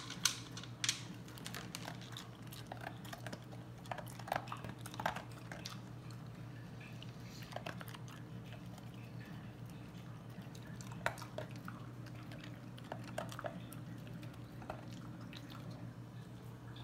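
German Shepherd chewing and crunching dry kibble from a plastic slow-feed bowl, with scattered irregular crunches and clicks. A steady low hum runs underneath.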